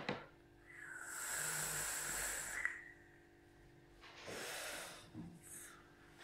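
A long hissing draw through an e-cigarette dripper atomizer, airflow rushing through it with a faint whistle, followed about four seconds in by a shorter breathy exhale of the vapour.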